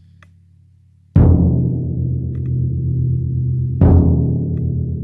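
Bass drum with a synthetic head struck twice with a soft mallet, about a second in and again near four seconds; each hit is a deep boom that keeps ringing on as the head goes on vibrating.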